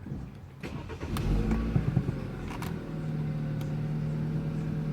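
BMW 428i's 2.0-litre turbocharged four-cylinder starting up about a second in, flaring loudly for a moment, then settling into a steady idle.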